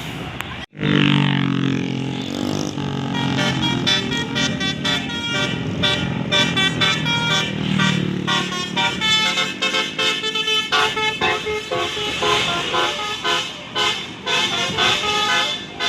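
Basuri musical horn on a bus playing a tune. It starts about a second in with lower, bending tones, then carries on as a fast run of short notes.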